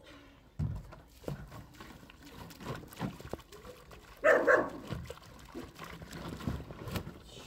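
A puppy gives a single short bark about four seconds in, among scattered low thuds.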